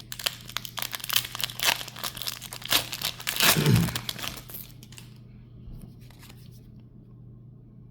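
Foil Pokémon booster pack wrapper being torn open and crinkled, a dense crackling that is loudest about three and a half seconds in and dies away after about four and a half seconds.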